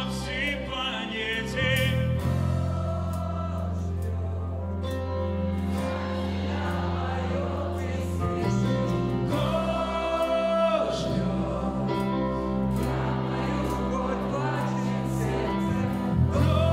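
A live band plays a Christian worship song, with a male lead singer over electric guitars, bass, keyboard and drums. The singer holds long notes about ten seconds in and again near the end.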